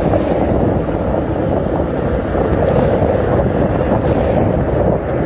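Steady wind rushing and buffeting over the microphone of a moving motorcycle, a dense low rumble with the ride's road noise mixed in.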